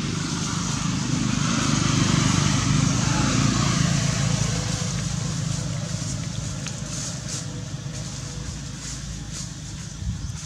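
Low rumble of a passing motor vehicle, swelling about two to four seconds in and then slowly fading, with faint light clicks and rustles over it.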